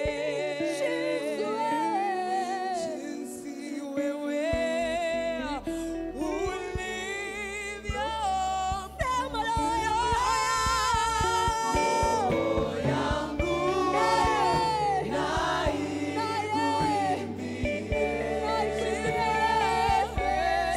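Church worship team singing a slow gospel worship song into microphones, several voices with vibrato. A low sustained accompaniment comes in about four and a half seconds in.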